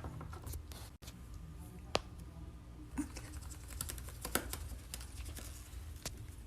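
Scattered light clicks and taps over a low hum, with sharper ones about two, three and four and a half seconds in.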